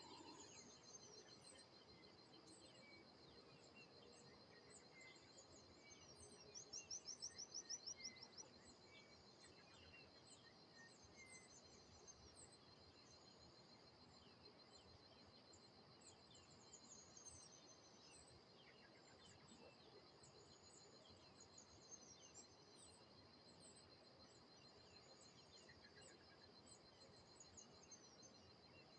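Songbirds chirping and calling, over a steady high insect drone. About six seconds in, a fast trill of evenly repeated notes lasts about two seconds and is the loudest sound.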